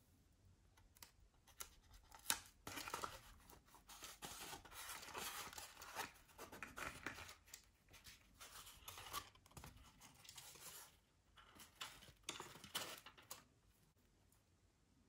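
Faint, irregular rustling, scratching and small clicks of hands handling a lightweight rubber-powered model airplane and its small parts.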